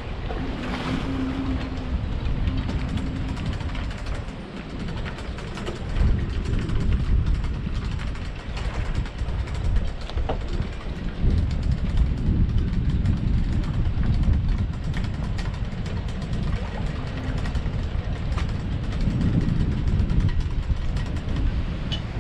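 Wind buffeting the microphone, a low rumble that rises and falls, over water lapping at the slipway, with scattered light clicks and knocks from work at the boat trailer.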